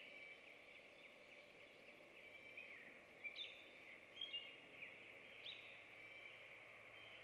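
Faint background of small songbirds: a few short, sharp high chirps over a steady faint hiss, the owl itself silent.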